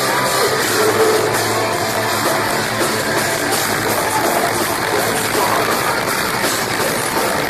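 Metalcore band playing live, heard through a crowd-held recording: distorted electric guitars, bass and a pounding drum kit, loud and dense throughout.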